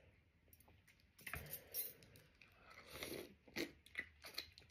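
A person eating steamed oysters close to the microphone: chewing, with a run of short sharp clicks and crackles that starts a little over a second in.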